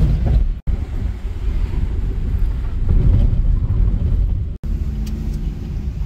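Car driving, its engine and tyre rumble heard from inside the cabin. The sound drops out briefly twice, under a second in and after about four and a half seconds.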